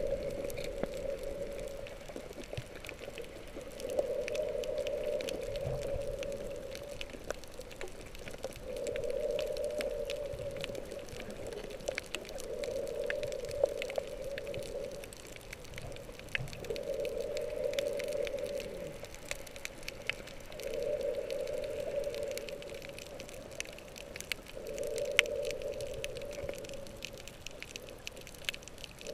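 Underwater sound through an action camera's waterproof housing: a snorkeler's breathing through the snorkel, a muffled whoosh that swells for about three seconds and fades, once every four seconds or so, over faint scattered clicks and crackles in the water.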